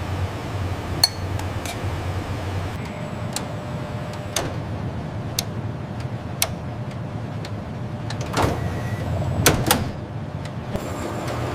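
Steady low hum of processing-line machinery with scattered sharp clicks and light knocks, about a dozen, bunched most heavily a little before the end.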